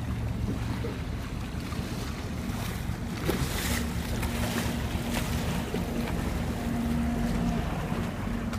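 Wind rushing on the microphone and water washing along a moving gondola, with a steady low hum coming in about three and a half seconds in.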